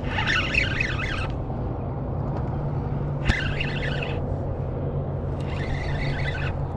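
Spinning reel being cranked in three short spells of about a second each, retrieving line against a hooked striped bass, over a steady low motor hum. A single sharp click comes about three seconds in.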